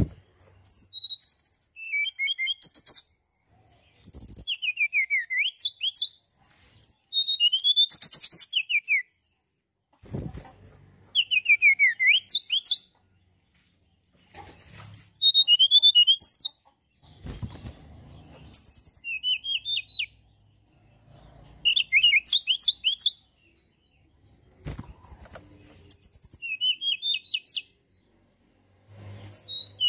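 Tledekan gunung songbird singing: about nine phrases of high chirps and quick downward-sweeping trills, each lasting about two seconds, with short pauses between them. A few faint low knocks fall in the gaps.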